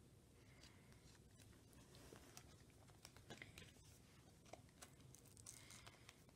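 Near silence, with faint rustling and scattered light clicks of photocards and plastic binder sleeves being handled.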